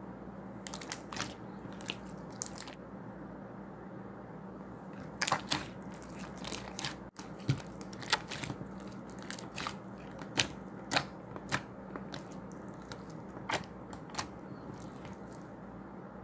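Irregular sharp crunching crackles, in small clusters, over a steady low hum.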